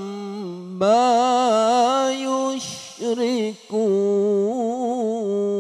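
Male qari's voice in melodic Quran recitation (tilawah), amplified through a handheld microphone. He holds long, ornamented notes with a wavering pitch as he draws out the words ''amma yushrikun'. There is a short break near the middle.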